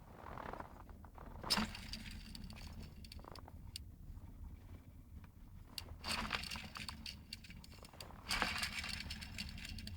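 Car engine running with a steady low hum and scattered knocks and clicks, the sound of a knocking alternator.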